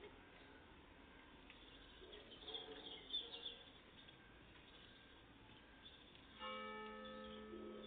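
Faint, scattered bird calls, then a church bell strikes about three-quarters of the way through and rings on with a steady hum of overtones.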